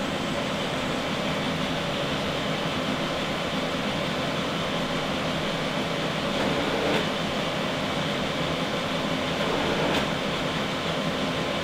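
Brother DCP-L2550DW laser printer starting a print job and warming up: a steady mechanical whir from its fan and motors, with a couple of faint clicks.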